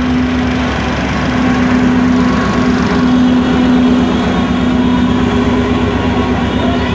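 Diesel engine of an Indian Railways DEMU train's power car running at idle, a steady drone with an even low throb. It is loudest about three to four seconds in.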